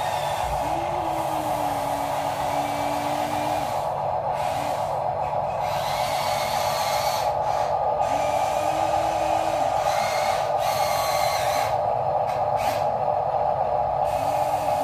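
Small electric gear motors of radio-controlled toy construction machines whirring steadily, with another motor's whine starting and stopping in short runs, shifting in pitch as it runs.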